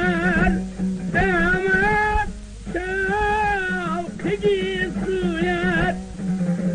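A recording of Tajik traditional singing: a voice sings long, wavering phrases with wide vibrato over a plucked string instrument and a steady low tone. The voice stops about six seconds in, leaving the instrument playing alone.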